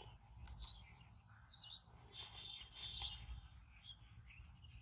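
Birds chirping faintly, with a quicker run of chirps in the middle, over a low steady rumble.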